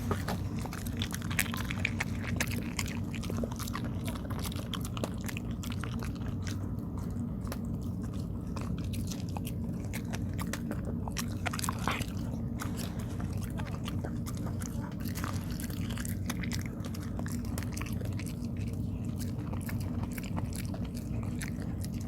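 A dog chewing and biting rice cake (tteok): many irregular small clicks of its teeth and jaws, over a steady low hum.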